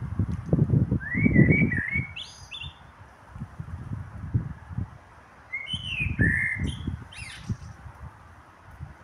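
Common blackbird singing: two fluty warbled phrases, one about a second in and another about five and a half seconds in, each ending in higher squeaky notes. Irregular low rumbling bursts come and go beneath the song and are the loudest sound at times.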